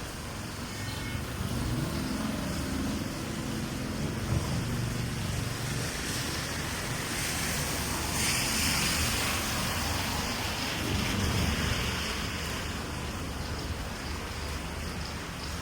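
Steady rain on a street with vehicles passing on the wet road. A low rumble swells a few seconds in and again later, and a hiss of tyre spray rises in the middle.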